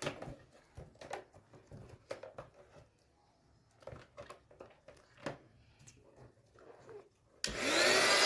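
Latex balloons being handled and knotted, with scattered soft taps and rubbery rustles. Near the end an electric balloon pump switches on with a loud steady whir, its pitch rising briefly as the motor spins up to inflate a balloon.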